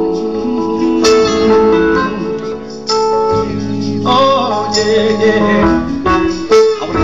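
Live band music: a man singing into a microphone, backed by an electric keyboard and an acoustic guitar.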